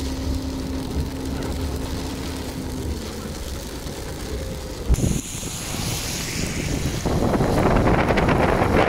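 Road and engine noise of a car driving on a wet road, with a faint steady hum that fades about three seconds in. A single thump about five seconds in, then from about seven seconds loud wind rushing over the microphone.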